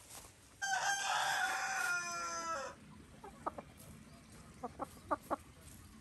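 A rooster crows once, a loud call of about two seconds that drops slightly in pitch at the end, followed by a few short clucks from chickens.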